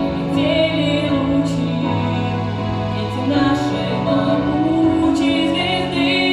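Slow music with a singing voice holding long, wavering notes over sustained low notes.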